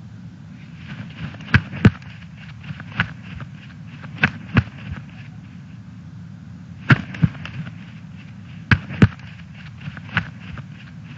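A series of sharp pops or cracks, the loudest coming in close pairs about a third of a second apart, over a steady low hum.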